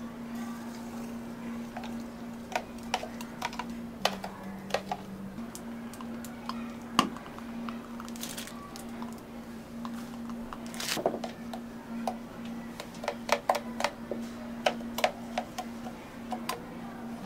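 Barista handling cups, lids and utensils while preparing a drink: scattered clicks, taps and light clinks, with a brief rushing noise about eight seconds in and a louder one about eleven seconds in, over a steady low hum.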